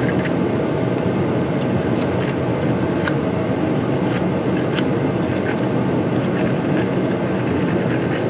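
Wire battery-terminal brush scrubbing corrosion off battery cable terminal ends in short, irregular scratchy strokes, over a steady low rumble.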